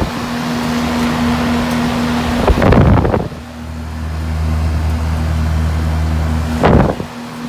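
Carrier 38CKC air-conditioner condensing units running in the rain: a steady hum under the rush of the condenser fans and rain hitting the fan. About two and a half seconds in and again near the end there is a brief loud rush, and between the two the sound turns to a deeper, stronger hum.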